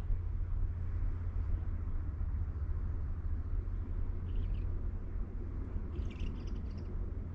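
Wind rumbling steadily on the microphone, with a few faint, short, high chirps about halfway through and again near the end.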